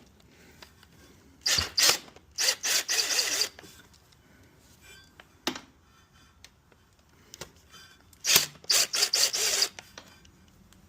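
Tool work on snowmobile parts being removed: two spells of quick, harsh scraping bursts about six seconds apart, with a single sharp click between them.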